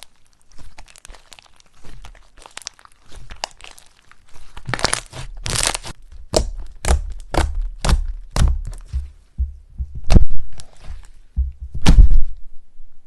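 Colourful slime being pressed and mixed by hand, giving sharp pops and crackles. Light at first, the presses get heavier about a third of the way in, coming about twice a second, with two hardest thunks near the end.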